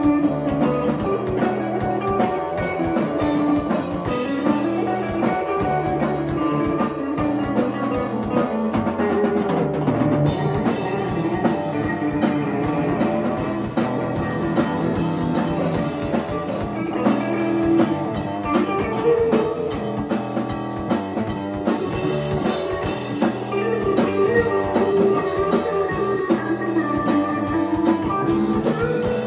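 A psychedelic rock band jamming live: electric guitar, electric bass and drum kit playing together.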